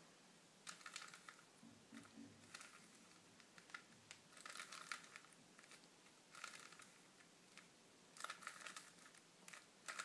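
Faint plastic clicking and clattering of a 3x3 Rubik's cube's faces being turned by hand, in several short runs of quick turns with pauses between them.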